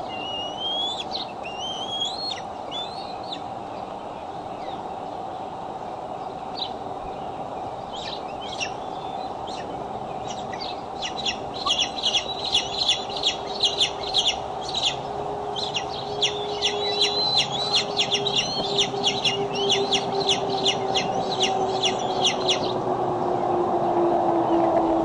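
Bald eagles calling at the nest: a few high, rising whistles near the start, then from about halfway a long run of fast, high-pitched chittering notes, several a second, that lasts about ten seconds.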